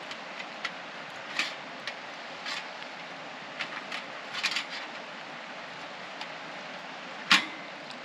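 Disposable barbecue burning, its paper wrapper and charcoal catching, with scattered small crackles and pops over a steady hiss. One sharp, much louder crack comes near the end.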